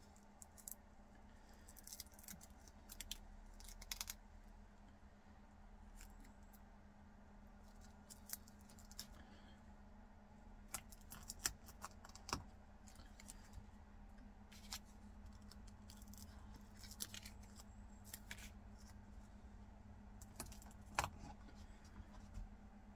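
Faint handling sounds: scattered light clicks and taps as self-adhesive Velcro squares are peeled from their backing paper and pressed onto small plastic toy boxes, over a low steady hum.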